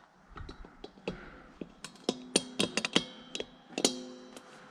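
Metal clanking: a run of sharp knocks, several of which ring on with a clear metallic tone, bunched between about two and four seconds in.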